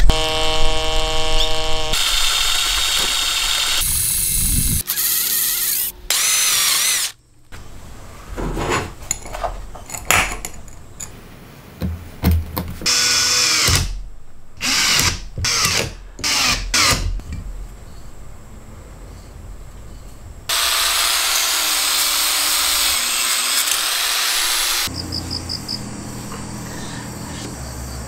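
Makita cordless drill driver boring and countersinking holes in steel bar, in a series of short bursts: the motor whines up, bites, and winds down again. About three-quarters through there is a longer, steady stretch of loud tool noise, and near the end crickets chirp in fast pulses.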